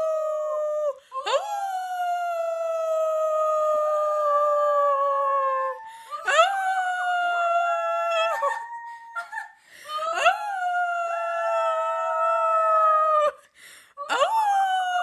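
Husky puppy howling: a run of long, high howls, each starting with a quick upward slide and then falling slowly, with short breaks between them.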